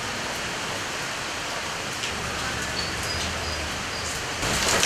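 Steady rain falling on leaves, an even hiss that gets suddenly louder and heavier near the end.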